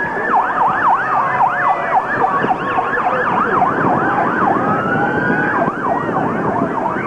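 A siren sounding, switching between a fast yelp that rises and falls about three times a second and a slow rising wail in the middle, over a noisy background.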